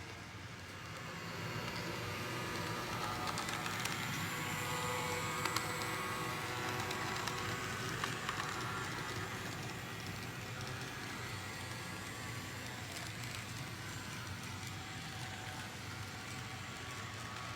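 Model train running on the layout's track: a steady motor and wheel rumble with occasional clicks, growing louder over the first few seconds as it comes closer, then easing off a little.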